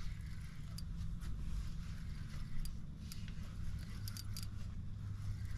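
Spinning reel being wound in against a hooked redfin: scattered faint clicks from the reel, a few in quick succession about four seconds in, over a steady low hum.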